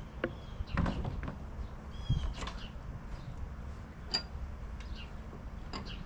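A few separate metal clinks and knocks from a wrench working a seized blade bolt on a lawn-tractor mower deck.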